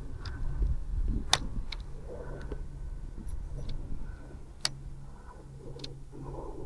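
Handling of a spinning rod and reel while fishing a lure: a few scattered sharp ticks, the loudest about a second and a half in and near the two-thirds mark, over a low steady hum and a rumble of wind on the microphone.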